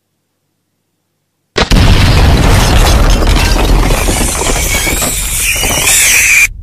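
Explosion sound effect: a sudden loud blast about a second and a half in, followed by a long low rumble that cuts off abruptly near the end.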